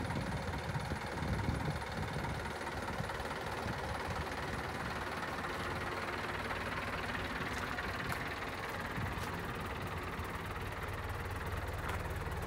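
Mitsubishi Rosa minibus's 4D31 four-cylinder turbo diesel engine idling steadily.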